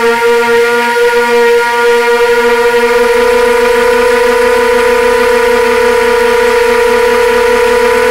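Drone's electric motors and propellers whining at a steady high pitch, heard close up from the onboard camera; the pitch wavers a little for the first couple of seconds, then holds steady.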